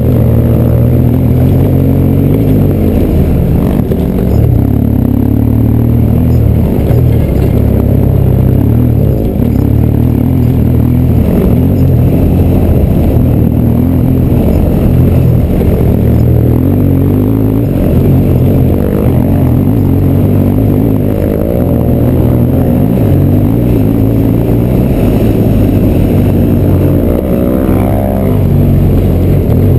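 Motorcycle engine running under load on an off-road ride, heard from the bike itself. The revs rise and fall as the throttle changes, with a clear rise near the end.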